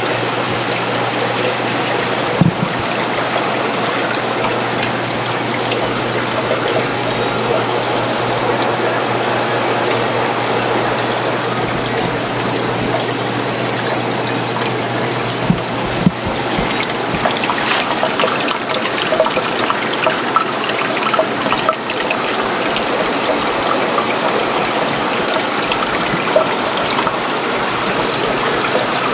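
Steady rush and trickle of running water from aquarium filtration, over a low steady hum, with a few faint clicks.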